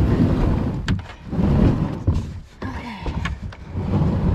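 Pelican Argo 100XR kayak being paddled on calm water: a low, uneven rumble that swells and fades, with a few sharp knocks, one about a second in and another about three seconds in.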